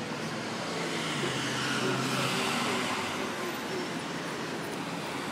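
City street traffic noise, with a vehicle passing and swelling louder about two seconds in; faint voices underneath.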